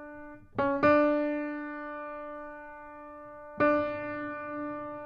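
Slow background music on a piano-like keyboard: two notes struck close together about half a second in and another about three seconds later, each ringing on and slowly fading.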